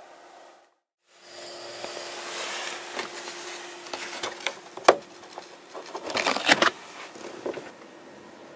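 Handling and rustling inside a caravan over a steady faint hum, with a sharp click about five seconds in and a burst of clicks and rattles about a second and a half later as the caravan door is unlatched and opened.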